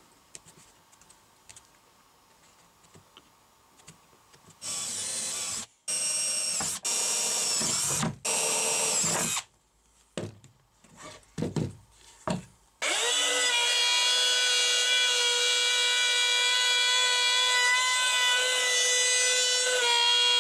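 Faint taps of an awl marking a fibreboard panel, then a power drill boring holes in it in four bursts of a second or so each, its whine dipping under load, and a few quick blips. About two-thirds of the way in, a compact trim router starts up and runs with a steady high whine.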